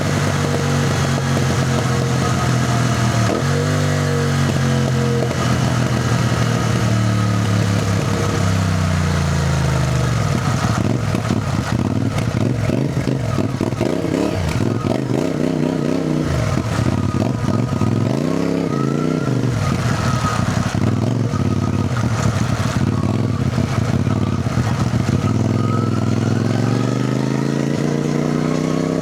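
CFMOTO 450NK motorcycle's parallel-twin engine running under way, its pitch rising and falling as the rider accelerates, shifts and eases off. The revs climb again near the end.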